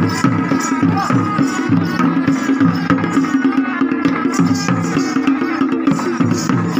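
Traditional Tamil folk drums, hand-held rope-laced drums beaten in a steady driving rhythm of about three strokes a second, with sustained pitched tones over the beat.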